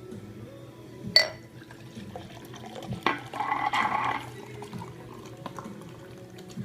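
A bottle of fizzy water kefir being opened: a sharp pop about a second in, then a second click and about a second of fizzing, rushing liquid.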